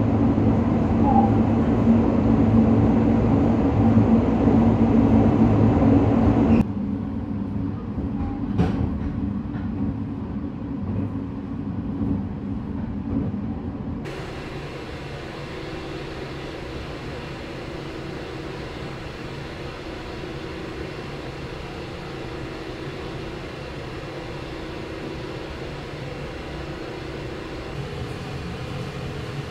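Running noise of the 285 series Sunrise Express sleeper train heard from inside the carriage: a steady rumble and hum. It drops abruptly to a quieter level about six seconds in and again near the middle, with a single sharp click around eight seconds in.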